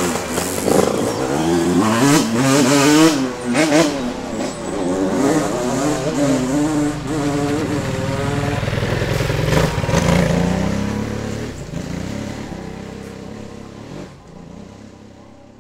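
A motorcycle engine running loud and revving, its pitch wavering up and down, then fading away over the last few seconds.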